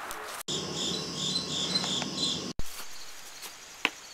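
Crickets chirping in a regular run of short pulses, about three a second, for about two seconds. The sound starts and stops abruptly at edit cuts.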